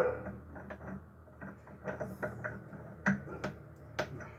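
Metal gearbox parts of a Ford Pampa 4x4 clinking and knocking as the traction sleeve is worked off its shaft: a scattering of sharp taps and clicks, the loudest about three and four seconds in.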